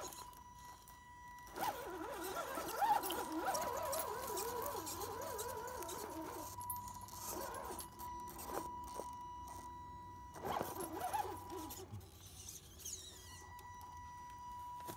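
Brushed 540 electric motor and drivetrain of an Axial SCX10 RC rock crawler whining as it climbs over rocks. The pitch wavers up and down with the throttle, over a steady high electronic whine. There are a couple of short knocks of tyres or chassis on rock about two-thirds of the way through.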